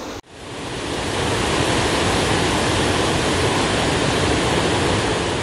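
Waterfall rushing steadily, a dense even roar of falling water that fades up just after a sudden cut at the start.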